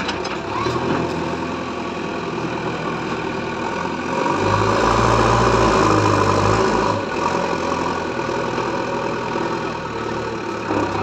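JCB backhoe loader's diesel engine running steadily, growing louder and heavier for about three seconds from around four seconds in, then settling back.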